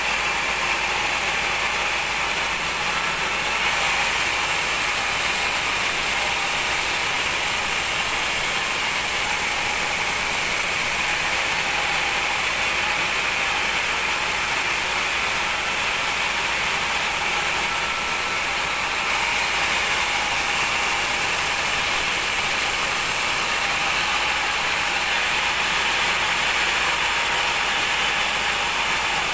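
Band sawmill blade ripping a large mahogany log into boards: a steady, even noise of the saw running through the wood without letup.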